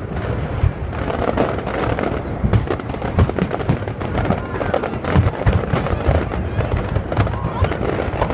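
Fireworks going off in a dense, continuous barrage: many bangs and booms overlapping, several a second, with no pause.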